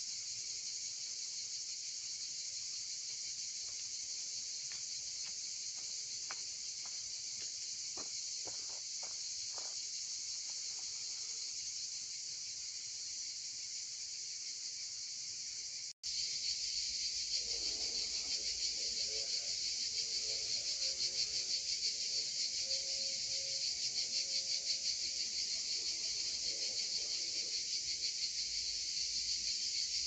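A dense, steady chorus of summer insects, a high-pitched continuous buzzing. It drops out for an instant about halfway through and comes back louder, with a faster pulsing.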